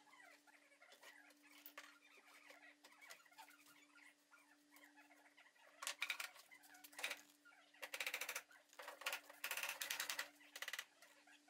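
Glue roller run along the edges of walnut boards on a wooden workbench: three passes of rapid rattling clicks, the first about six seconds in and the last the longest, over a faint steady hum.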